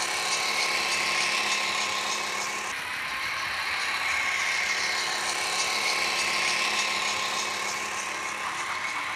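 Model railway locomotive running slowly along the track, its small electric motor giving a steady whine over the rolling of the wheels on the rails.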